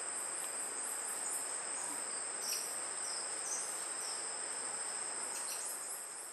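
Forest insects, crickets or cicadas, in a steady high-pitched chorus with quicker repeated chirps above it. The sound fades near the end.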